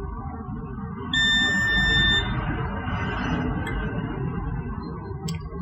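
A digital multimeter beeps once, a steady high tone about a second long, over background music. A light click follows near the end.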